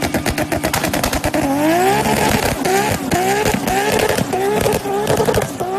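Turbocharged 2JZ inline-six of a Toyota Supra MK4 crackling with a rapid string of exhaust pops. About a second and a half in, the revs climb and then surge up and down again and again, as though bouncing off the rev limiter, while the car spins its rear tyres in a burnout with flames from the exhaust.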